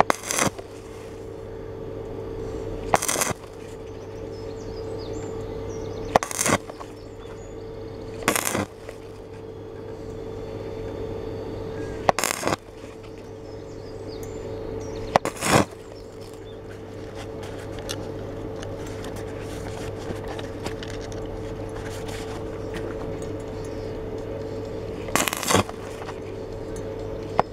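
Stick-welding electrode striking short, crackling arcs on 2.2 mm steel, about seven brief bursts two to four seconds apart with a long pause in the second half: an intermittent technique for building up weld across a large hole in thin metal without burning through. A steady electrical hum runs underneath.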